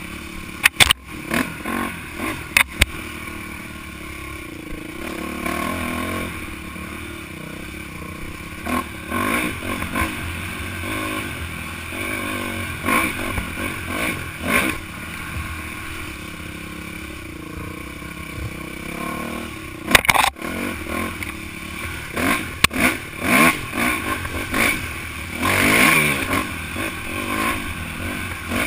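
Dirt bike engine running and revving up and down as it rides a bumpy dirt trail, with sharp knocks and clatter from the bike hitting bumps, loudest about a second in and around twenty seconds in.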